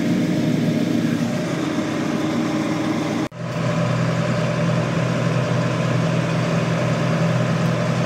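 Tractor engine running steadily, heard from inside the cab, while a combine unloads corn into the grain wagon alongside. About three seconds in, a cut switches to a deeper, steadier engine hum.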